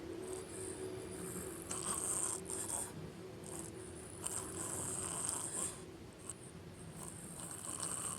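A person in deep sleep snoring heavily, three long snores roughly every two and a half to three seconds.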